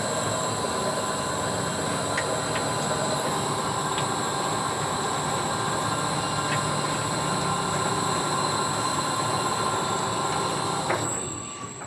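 15-ton overhead crane's drive running steadily, a machine hum with a high metallic whine, cutting out about a second before the end.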